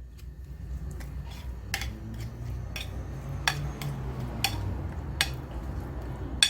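A spoon stirring a wet curry seasoning mix in a bowl: a low scraping churn with sharp clinks of spoon against bowl about once a second, the loudest near the end.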